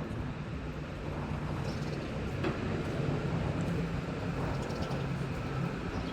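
Wind buffeting the microphone: a steady low rumble that doesn't let up.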